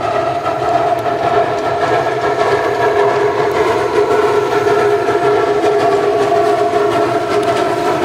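A 760 mm narrow-gauge steam locomotive working past with its coaches. A steady high tone of several pitches sits over the noise of the train running.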